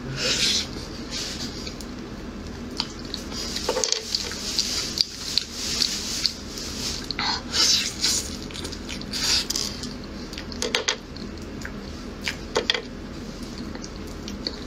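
Wet slurping and smacking as someone eats the soft, pudding-like pulp of a ripe black sapote, sucking it off the green skin in short, irregular mouthfuls.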